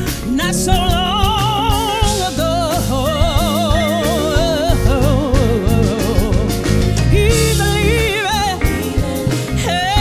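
A woman singing soul live into a microphone, with a wide vibrato on long held notes, backed by a band with drums and electric guitar.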